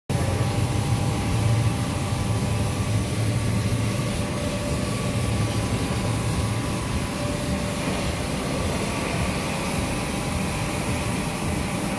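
Factory machinery on a PVC production line running steadily: a continuous low hum with several faint steady whining tones above it.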